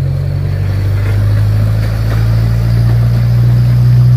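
Small tourist train's locomotive engine running with a steady low hum, heard from aboard the moving train.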